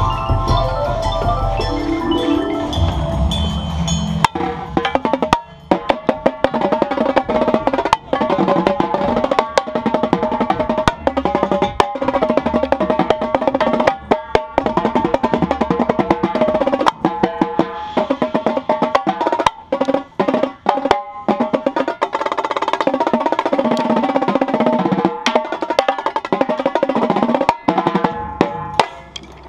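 Indoor drumline playing: held pitched mallet tones for about the first four seconds, then fast, dense marching tenor drum (quads) playing close to the microphone, with snare drums and front-ensemble mallets underneath.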